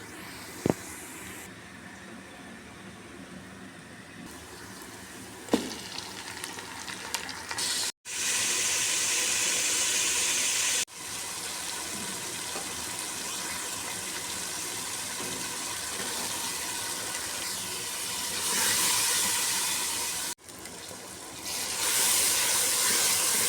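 Cooking in a pot: a steady sizzling hiss of food frying, in several short cut segments, with two sharp knocks in the first six seconds.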